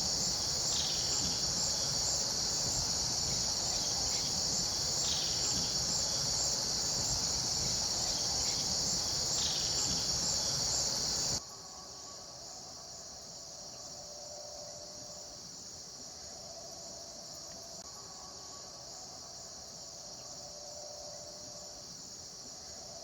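A steady, loud shrilling insect chorus, with three short, dry belted kingfisher rattles about 1, 5 and 9.5 seconds in (the same call repeated). About 11 seconds in, the sound cuts abruptly to a much quieter insect chorus.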